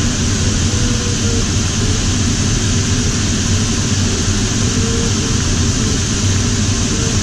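Steady rush of air over a sailplane's canopy in gliding flight, heard inside the cockpit, with a low hum underneath.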